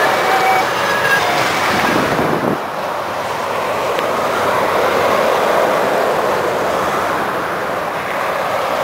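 Motorway traffic: lorries and cars passing at speed, a steady rush of tyre and engine noise. A lorry passes close about two seconds in, its sound dropping in pitch as it goes by.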